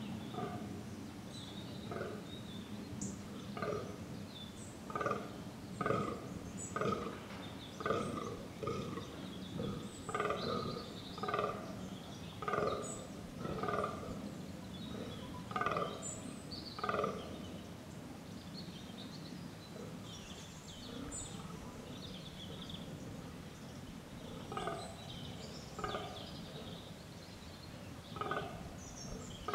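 Fallow deer buck groaning in the rut: short, deep groans repeated about once a second, in a long run through the first half and a few more near the end.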